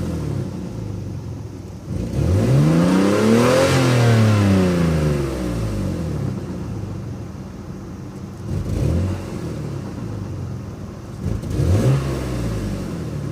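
Car engine revved in neutral: one long rev rising from about two seconds in and falling back to idle, then two short blips near the end. The owner suspects an exhaust leak or a failing catalytic converter, and reports an odd sound when the revs drop and at idle.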